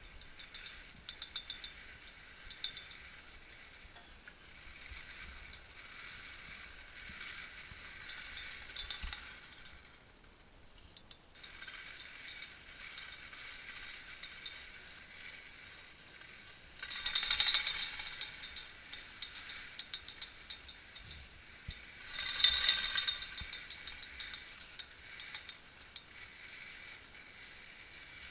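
1961 Hall T-bar's hanger rattling and ticking as it pulls a skier uphill, with skis hissing on groomed snow. Two louder metallic clattering stretches, about a second and a half each and some five seconds apart, come past the middle.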